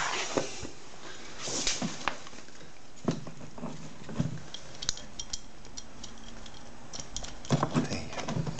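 Handling noises at a rubbish bin of plastic bottles, bags and paper: scattered small clicks, knocks and crinkling. A denser run of them comes near the end.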